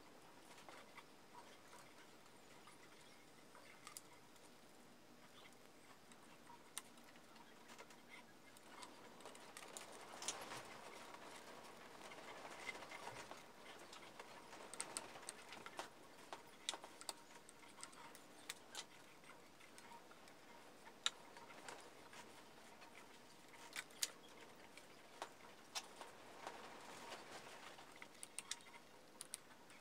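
Faint, irregular small clicks and rustles of hands handling and twisting hookup and speaker wires inside a plywood speaker box, over near silence.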